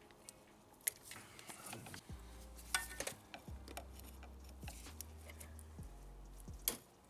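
Scattered small sharp clicks and taps of a metal pick working a plastic push-fit fuel line connector off a diesel fuel filter.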